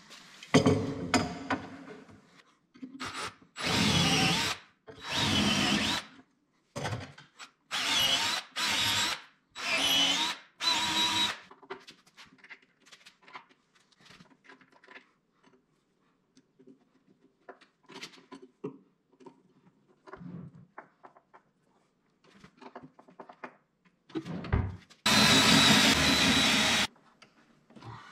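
Cordless drill-driver driving screws, most likely fastening the metal drawer slides. It runs in short bursts of about a second each, several in a row in the first eleven seconds, then one longer run near the end. Light clicks and knocks of handling come in between.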